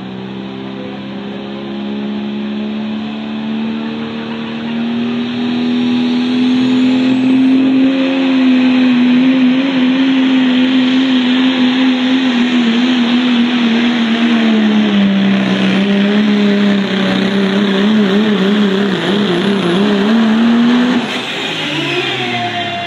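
Cummins diesel in a Chevrolet pulling truck at full throttle, dragging a weight sled, its note rising and growing louder as it comes down the track. Late in the pull the pitch wavers and sags as the load builds, then the engine cuts back sharply near the end.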